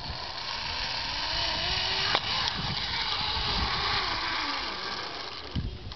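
Zip wire trolley's pulleys running along the steel cable at speed: a steady whirring hiss, with a faint tone rising in pitch over the first couple of seconds and one sharp click about two seconds in.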